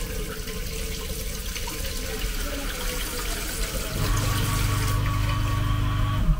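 Water running steadily from a tap. A steady low motor hum joins about four seconds in and cuts off just before the end.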